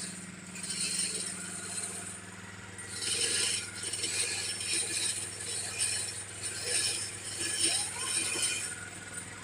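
Well-drilling machine running: a steady motor hum under repeated bursts of metallic rattling and grinding that come and go over several seconds.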